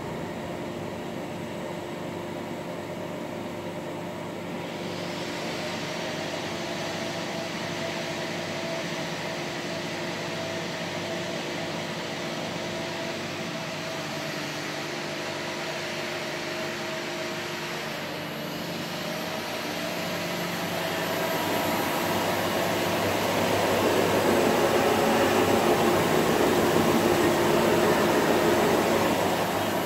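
Tschudin TS44 CNC cylindrical grinding machine running, a steady motor hum with a whirring noise that comes in about four seconds in and grows louder in the last third.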